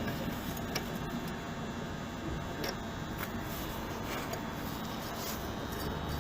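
Steady whir of an auxiliary fuel heater's blower fan with a few faint, irregular clicks. The fuel dosing pump, which should tick, stays silent, and is suspected to be broken.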